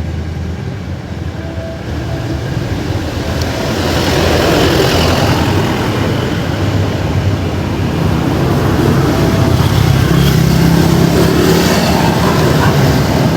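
Street traffic: motor vehicles running and passing close by, with a steady low engine hum. It swells about four seconds in and grows louder again from about eight seconds.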